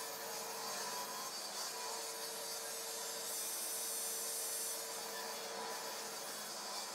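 Waxed crosscut sled sliding back and forth on the table saw's metal top, a low steady rubbing hiss as the wooden runners glide in the mitre slots.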